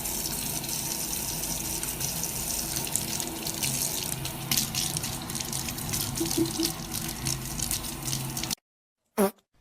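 Steady rush of running water with a faint low hum underneath, cutting off abruptly near the end.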